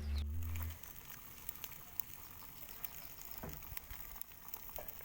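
Low background music cuts off under a second in, leaving a cooking fire crackling faintly with scattered small pops and ticks as chicken roasts over it.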